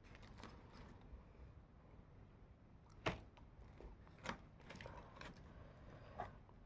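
Quiet, close-up chewing of crispy fried chicken: soft moist crackles with three sharper crunchy clicks about three, four and six seconds in.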